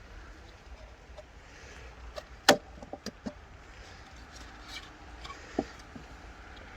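Wooden beehive parts being handled: a few sharp knocks and clicks of wood on wood, the loudest about two and a half seconds in with a short run of lighter ones after it, and another knock near the end, over a faint steady hiss.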